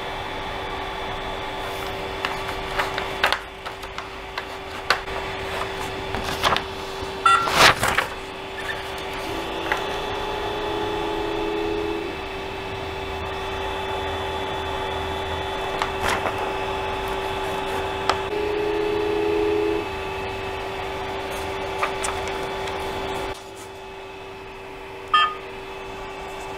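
Creality CR-10S Pro 3D printer humming steadily during manual bed leveling. Twice, about ten and about eighteen seconds in, a higher stepper-motor whine is added for one to two seconds as the print head travels between leveling points. Light taps and clicks come and go throughout, and the hum cuts off suddenly near the end.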